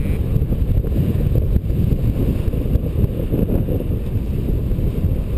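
Wind noise from the airflow of paraglider flight buffeting the camera's microphone: a loud, steady, low rushing rumble.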